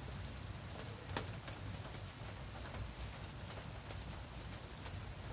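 Light rain pattering steadily, with a few sharp clicks of a metal ladle against the soup pot.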